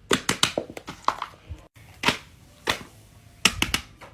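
Fidget toys being pressed and popped: sharp clicking pops. There is a quick run of about eight in the first second, then two single pops, then a quick cluster of four near the end.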